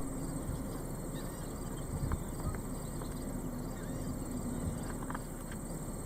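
Wind buffeting the microphone: a steady low rumble with uneven gusts, under a faint steady high tone and a few faint, short, high sounds.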